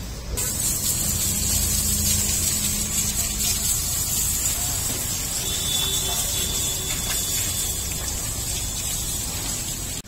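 Water from a hose spraying in a jet over a cow: a steady hiss that starts abruptly a moment in.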